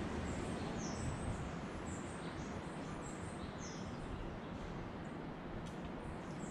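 Small birds giving repeated short, high, slightly falling chirps, roughly one every second, over a steady hiss of outdoor background noise.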